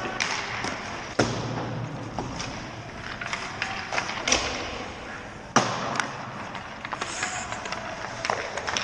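Hockey pucks struck by sticks and knocking against the ice and boards, with skates scraping the ice in between. There are several sharp cracks, two of them loud, about a second in and a little past halfway, each echoing briefly in the rink.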